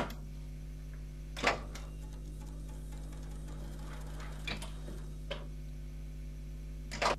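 A steady low electrical hum with a handful of short, sharp clicks at irregular intervals; the loudest comes about a second and a half in.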